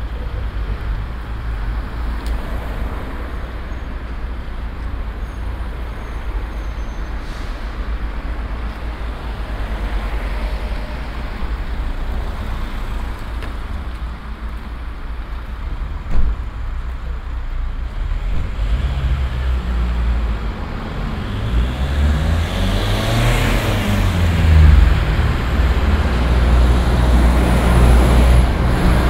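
Road traffic: a steady low rumble, with a single sharp knock about halfway. From about two-thirds through, a vehicle's engine grows louder, its pitch sweeping up and then down as it passes.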